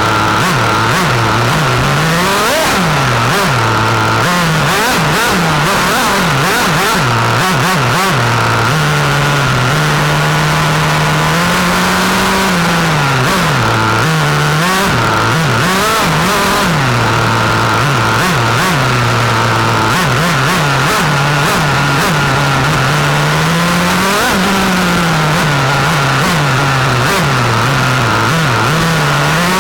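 1/8-scale RC car's two-stroke nitro glow engine, heard close from the car itself, revving up and down over and over as it laps. It is held at high revs for a few seconds twice, with short clatters from the chassis over the track.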